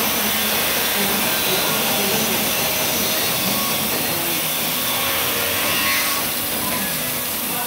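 Steady hiss-like machinery noise in a precast concrete plant's casting hall while a steel mould is being filled with concrete.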